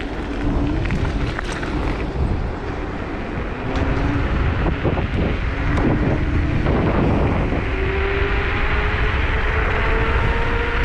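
Wind rushing over the microphone of a Zero 10X electric scooter in motion, with its electric hub motor whining. The whine climbs steadily in pitch over the second half as the scooter picks up speed.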